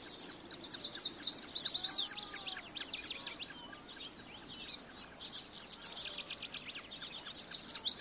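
Several birds chirping and calling together, with fast runs of high, falling chirps that are loudest about two seconds in and near the end, and a few lower whistled notes beneath.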